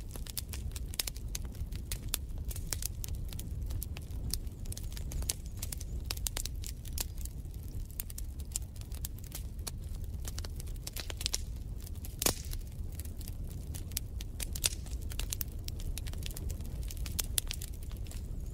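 Wood fire crackling in a fireplace: irregular pops and snaps over a low steady rumble, with one louder pop about twelve seconds in.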